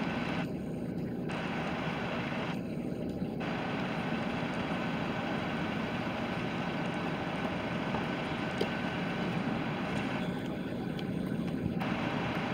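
Steady low rumble of a transit bus engine and traffic, with a faint steady high whine.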